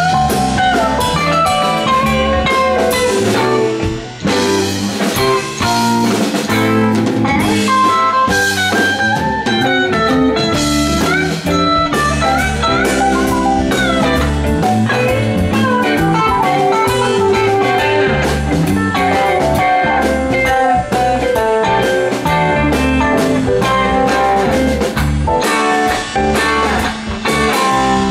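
Live rock band playing an instrumental jam: an electric guitar plays winding lead lines over a full drum kit.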